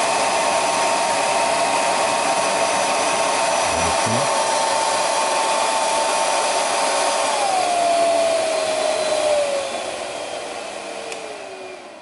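Unix UN-A3056 Super D+ hair dryer running on a high setting: a steady high whine over rushing air. About seven seconds in the whine drops in pitch and the motor winds down, the sound fading toward the end.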